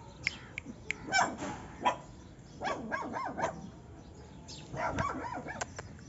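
Puppies yapping in short, high barks, in bursts about a second in, around three seconds in and again around five seconds in.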